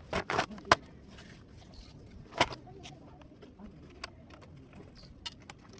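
Scattered clicks and light knocks of hard laptop parts being handled: a quick run of three near the start, a louder knock about two and a half seconds in, and a couple of faint clicks near the end.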